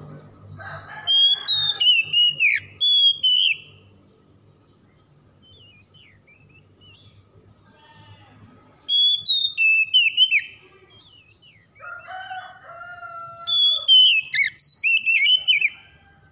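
Oriental magpie-robin (kacer) singing fast, full song in three bouts of whistled phrases that sweep up and down, with short pauses between them.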